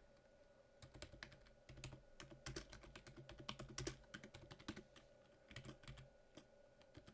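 Typing on a computer keyboard: a run of faint, irregular key clicks that stops shortly before the end.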